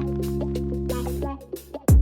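Background electronic music with a steady beat and held bass and chord notes; the music drops out briefly near the end and a falling bass sweep (a drop effect) comes in just before the next bar.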